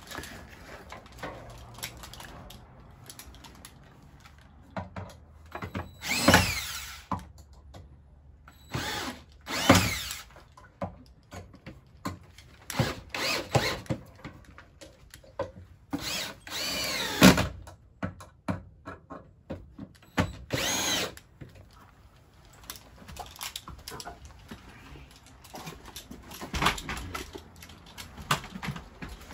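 Cordless drill driving screws into wooden 2x4 blocking between rafters, in four main runs of about a second each, the motor's whine rising and falling in pitch with the trigger. Short knocks and handling clatter of the tool and wood come in between.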